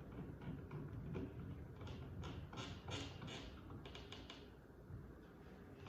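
Outlet wall plate being fitted and screwed on by hand: faint, irregular small clicks and short scrapes of the screwdriver and plastic plate, a cluster of sharper scrapes about two to three seconds in.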